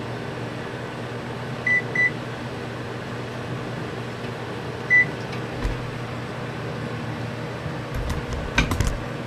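Electronic oven control panel beeping as its buttons are pressed to set a timer: two quick beeps about two seconds in and one more at about five seconds, over the steady hum of a microwave oven running. A few clicks near the end.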